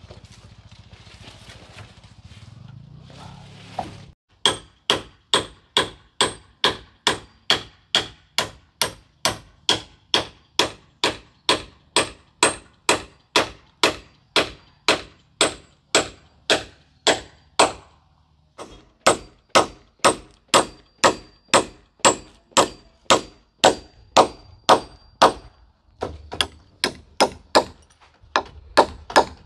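Steady, rhythmic strikes of a metal tool on a hard surface, about two blows a second, each with a short ringing clang. The blows begin a few seconds in, pause briefly near the middle, and pause again near the end.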